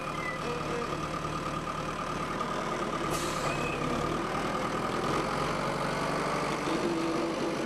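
WF Trac forestry tractor's diesel engine running steadily, with a steady high tone over the engine drone and a faint click about three seconds in.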